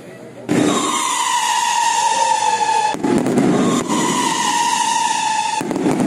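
Whistling fireworks: two long shrill whistles, each sliding slightly down in pitch, the first starting about half a second in, each followed by a short crackling burst.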